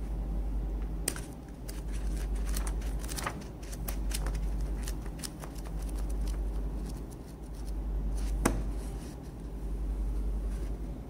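Paper pages of a paperback book riffled and turned by hand: a run of quick, light papery flicks, with one sharper snap late on, over a steady low rumble.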